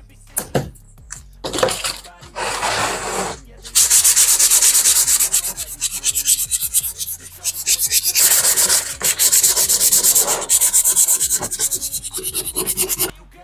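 Sheet of 180-grit sandpaper rubbed on a bare wooden board. A few short, irregular scrapes come first, then fast, even back-and-forth strokes along the grain from about four seconds in, stopping abruptly near the end.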